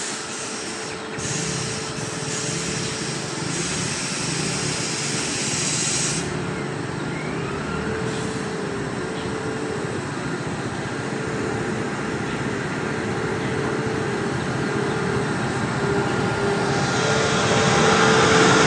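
WAP-7 electric locomotive approaching and drawing alongside, its running noise growing steadily louder and loudest near the end as it passes close by, with a steady hum throughout. A high hiss is heard during the first few seconds.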